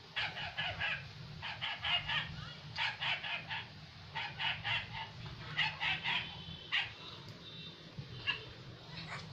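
A dog yapping in quick clusters of three or four short, high yaps about once a second, played through a smartphone's small speaker, over a steady low hum. The yaps thin out near the end.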